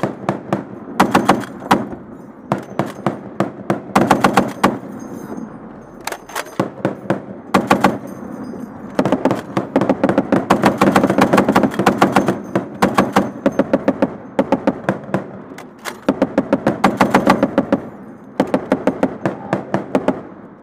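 M2 .50 caliber heavy machine gun firing from a vehicle turret, heard at the gun, in repeated bursts of rapid shots. Most bursts last about half a second to a second, with one longer sustained burst of about three seconds near the middle.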